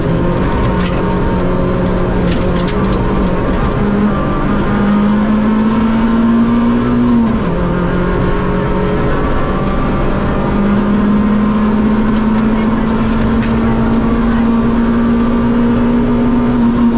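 Rally car engine pulling hard, heard from inside the cockpit. The engine note climbs slowly as the revs rise, drops sharply about seven seconds in, then climbs steadily again.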